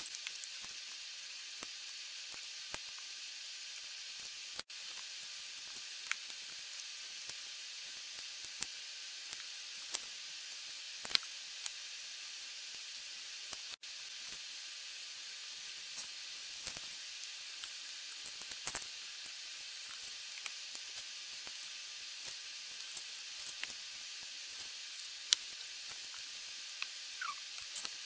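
Scattered sharp clicks and taps of plastic Lego bricks being handled and pressed together on a tabletop, at irregular intervals over a steady hiss. The hiss cuts out for an instant twice.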